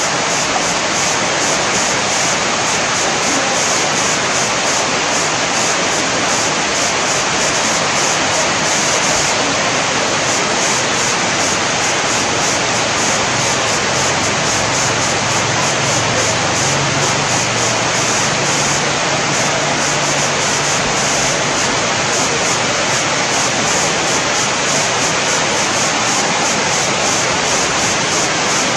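Steady rushing of river water pouring over a weir, a constant even hiss. A faint low hum comes in about halfway through and fades out again.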